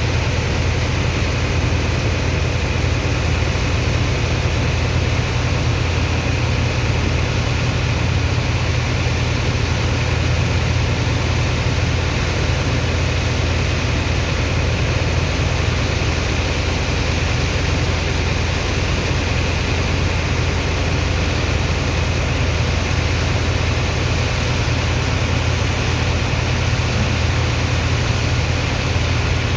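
Sand dredger's pump engine running steadily at a constant pitch, a strong low hum under a steady rushing noise.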